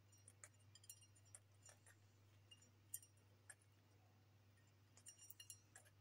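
Faint, irregular clicks and clinks of a lovebird's beak pecking at food on a plate, with a quick cluster of them about five seconds in, over a steady low hum.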